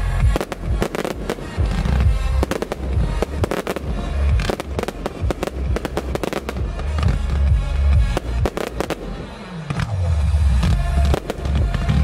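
Fireworks show finale: many aerial shell bursts banging in quick succession, with music playing alongside.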